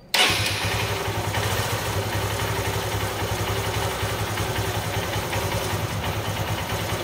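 Honda single-cylinder four-stroke motorcycle engine running steadily at idle, with an even low pulsing, warming up so the oil will drain freely.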